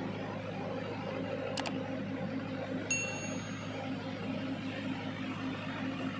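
Steady low drone of a ship's engine heard on board, with a single click and a short high ding about halfway through.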